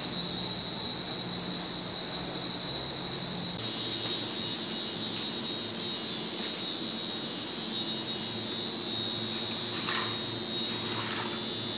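Steady machinery drone with a constant high-pitched whine over it. A couple of brief scraping knocks come near the end.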